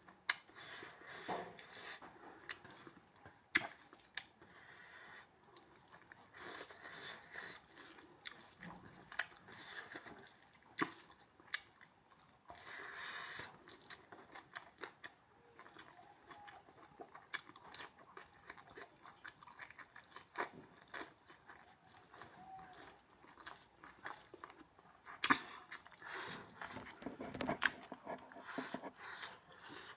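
A person chewing and biting into pork, with irregular sharp clicks of eating and the loudest bites near the end.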